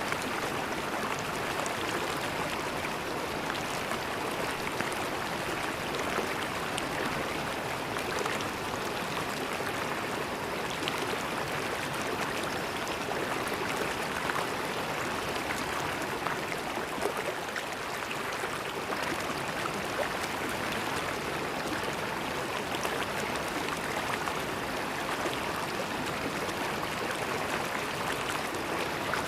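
River water flowing and splashing over rocks, a steady rush with fine splashy detail throughout.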